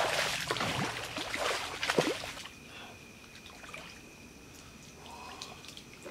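Splashing in shallow water as a hooked catfish thrashes and is grabbed by hand. It is loud and irregular for about two and a half seconds, then dies down to small drips and splashes.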